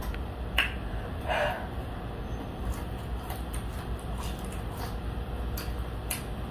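Eating sounds: a few sharp mouth clicks and smacks while chewing fried food, with one brief louder crunch or smack a little over a second in, over a steady low hum.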